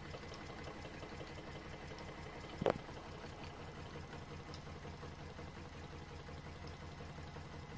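Homemade Stirling engine and its small generator running steadily and quietly under electrical load, charging a phone at about 5 volts: a faint, even hum. One short click about two and a half seconds in.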